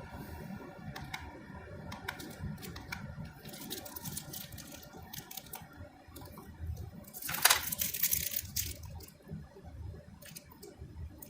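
Faint room sound with scattered small clicks and a brief rustle about seven seconds in.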